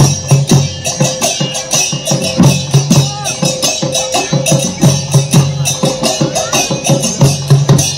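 Odisha folk music accompanying the animal mask dance: fast, even drumming with jingling, rattling percussion and a wavering melody line over it.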